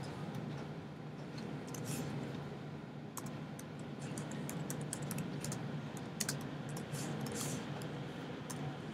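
Typing on a computer keyboard: irregular, scattered key clicks as code is entered, over a faint steady low hum.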